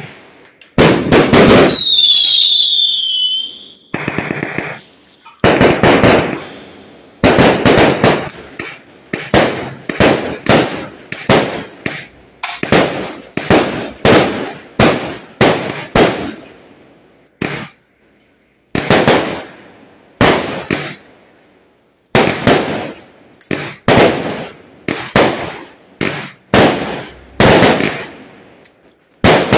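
Aerial fireworks bursting in quick succession: a string of sharp bangs, one or two a second, each trailing off in a brief crackle. A whistle falls in pitch about two seconds in, and there is a short lull just past halfway.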